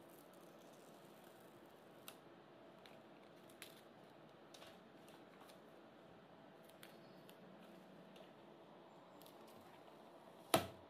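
Faint clicks and rustle of a paper sticker being peeled from its backing by hand, with one sharp tap near the end as the sticker is laid onto the hard plastic top of a toy piggy bank.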